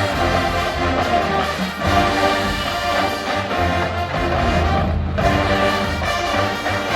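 College marching band playing at full volume, with brass over a steady low drum pulse. The sound thins for a moment about five seconds in, then the full band comes back.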